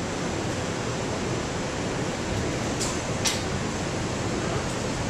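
Steady noise inside a 5 train subway car: the car's ventilation and running noise, with two short hisses about three seconds in.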